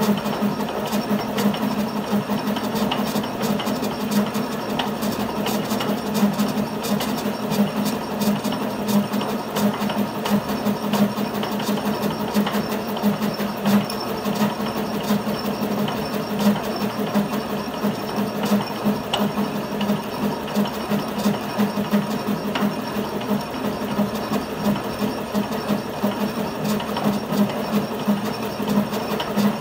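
Metal lathe running steadily, its chuck spinning a thread tap that hobs worm-gear teeth into a gear blank, with a steady pulsing hum and a fine rhythmic clatter of the cut.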